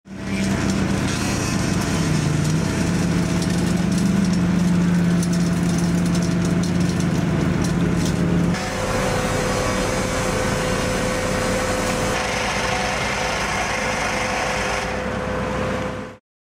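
Electric poker (internal) concrete vibrator running in freshly poured concrete, a steady low hum whose pitch dips briefly about two seconds in. About eight and a half seconds in, the sound cuts to a noisier mix of site machinery with a steady higher hum, and it stops abruptly near the end.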